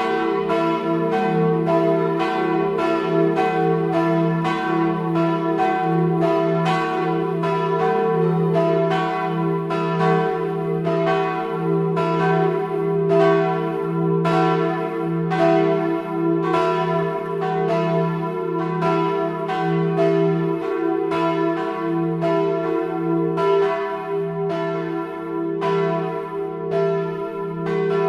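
Full peal of four swinging church bells, tuned e¹, f-sharp¹, a¹ and b¹, two cast by Ernst of Lindau in 1692 and two by Bachert of Heilbronn in 1954. The bells ring together in a dense, overlapping stream of strikes, about one and a half a second, over a steady hum.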